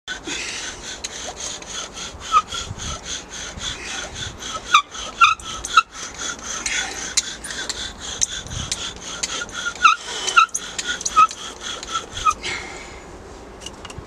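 Wooden bow drill working: the bow sawed rapidly back and forth spins the spindle in the hearth-board hole, giving a run of rubbing wood-on-wood strokes with a high squeak. It is the burning-in stage, charring the spindle end and hearth socket. The strokes stop near the end.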